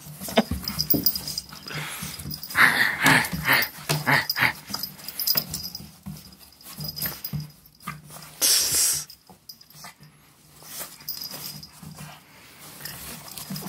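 Pug making small play noises and noisy breaths while wrestling with a hand, with a run of short calls about three seconds in. Its paws scrabble and knock on the plastic wheelbarrow tray.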